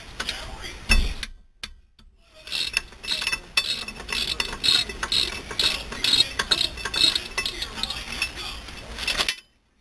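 Socket ratchet clicking in a steady rhythm, about three clicks a second, as it backs out a rear brake caliper bracket bolt. A single loud knock comes about a second in, followed by a short pause before the ratcheting starts.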